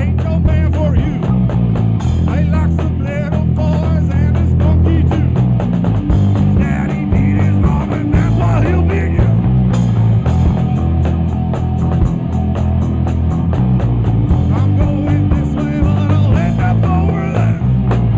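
Live rock band playing loud: electric guitar through a Marshall amp, bass guitar and a drum kit keeping a steady beat.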